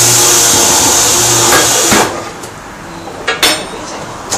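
Compressed-air tool in a tyre shop running in a loud hissing burst for about two seconds, followed by a few sharp metallic clicks.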